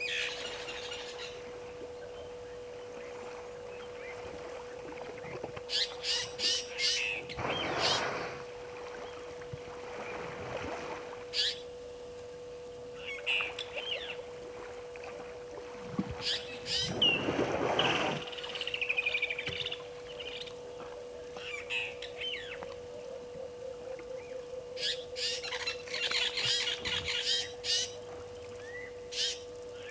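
African elephant bathing in a waterhole, splashing water in two longer bursts, one about a quarter of the way in and one past the middle. Birds chirp and squawk in short calls throughout, and a steady faint hum runs underneath.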